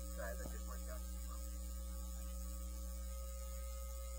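Steady electrical mains hum with a few faint steady tones, picked up by a telephone pickup coil on a sound-powered telephone line. A faint, brief voice comes down the line about half a second in.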